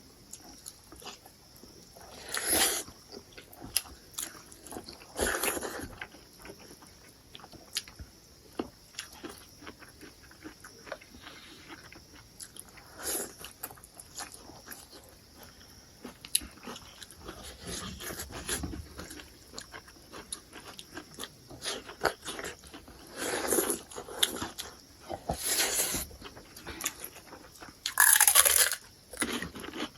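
A person eating crab close to the microphone: chewing and biting, with many small clicks throughout and about six louder crunches spread through, the loudest near the end.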